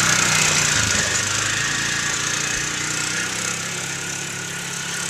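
Polaris side-by-side utility vehicle's engine running as it drives away, its sound slowly fading.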